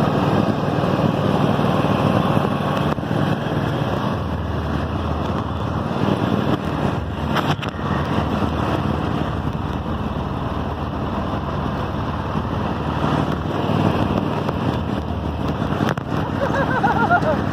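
Toro riding lawn mower's 22-horsepower Kohler 7000 series engine running steadily, now started easily after priming and fresh gas.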